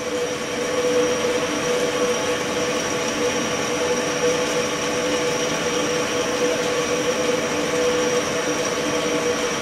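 Ultrasonic tank running with its water under cavitation: a steady hissing buzz with several held tones, the strongest a mid-pitched hum.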